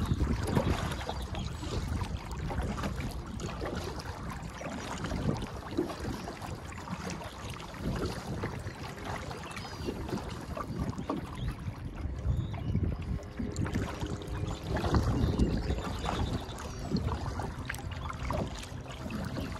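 Kayak paddling on choppy water: paddle blades dipping and splashing in an uneven rhythm, with water lapping against the plastic hull. Wind rumbles on the microphone, strongest near the start.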